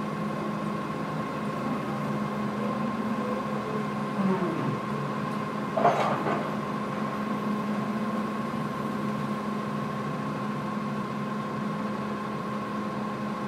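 A steady engine hum at idle, with a short, sharp metallic clank about six seconds in.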